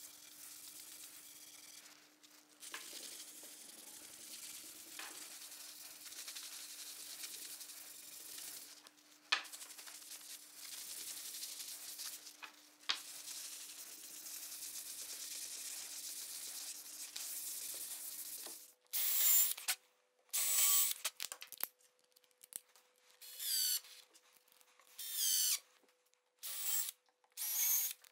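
A cloth rubbing wax into bare MDF board: a steady, soft scrubbing with a few light knocks. About two-thirds of the way through it stops, and a run of about eight short, separate sounds with pauses between them follows.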